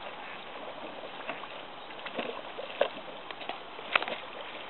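A dog swimming, its paddling strokes making soft sloshing and small splashes, with a few sharper splashes about two, three and four seconds in.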